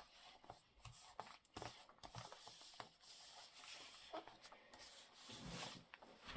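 Faint rubbing and rustling of paper being handled and pressed down by hand, with small scattered taps.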